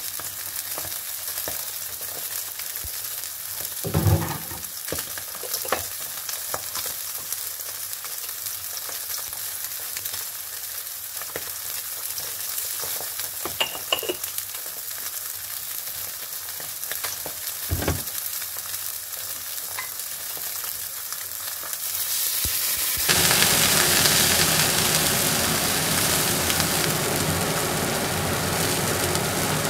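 Salmon fillets sizzling in olive oil in a nonstick frying pan, a steady high hiss with a few short knocks. The sizzle grows louder about three-quarters of the way through.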